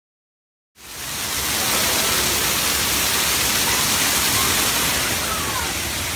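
Waterfall: water pouring over a rock ledge and splashing down in a steady rush, starting abruptly under a second in.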